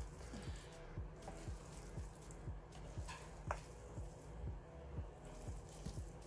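Slotted spoon stirring and mashing mayonnaise-coated potato salad in a mixing bowl: soft wet squelching with dull knocks against the bowl a few times a second.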